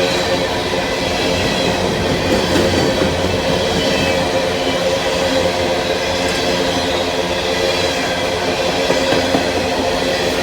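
Long empty coal train of hopper cars rolling past: a steady, loud rumble of steel wheels on rail with clattering from the empty cars.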